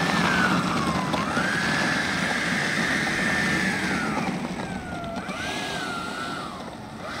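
120 mm Schuebeler DS-82-DIA electric ducted fan in a 14S-powered HSD L39 model jet, running as the jet rolls along the runway. It gives a high whine over rushing air. The whine climbs about a second in, holds, drops off around four seconds in, then wavers with the throttle, and fades slowly as the jet moves away.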